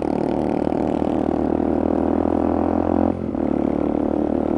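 Motorcycle engine running steadily while under way, with a brief drop in its sound about three seconds in before it picks up again.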